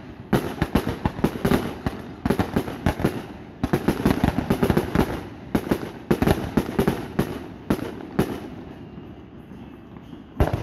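Rapid barrage of aerial firework bursts from a multi-shot cake, several bangs a second. The barrage thins out after about eight seconds, and one last sharp bang comes near the end.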